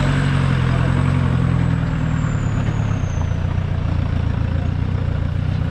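Off-road 4x4's engine running steadily at low revs, easing off slightly about two seconds in, with a faint high whine that slowly falls away.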